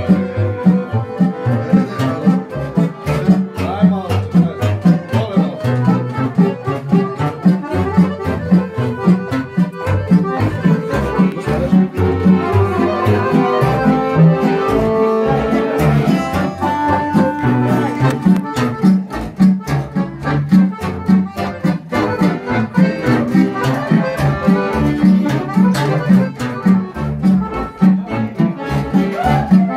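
Live tamburica-band folk music: an upright bass plucked in a steady, even beat under an accordion melody.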